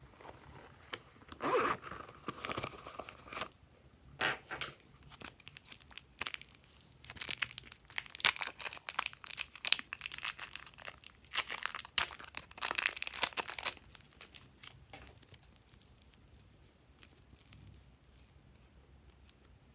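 Clear plastic wrapping crinkling and tearing as fingers pull it open, in several bursts of crackling over the first two-thirds, then only faint handling clicks.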